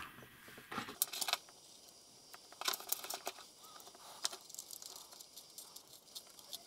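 Scattered faint clicks and light rattling of a plastic 12-volt car plug being handled as its tip cap is fitted and the plug body turned over in the fingers.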